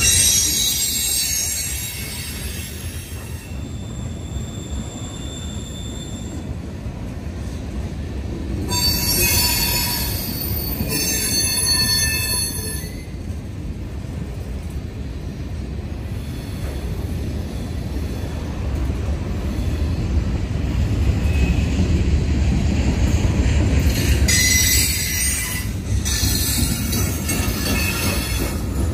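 Norfolk Southern freight train's hopper cars rolling past with a steady low rumble. Several times the wheels give brief high-pitched squeals: once at the start, twice about a third of the way in, and twice more near the end.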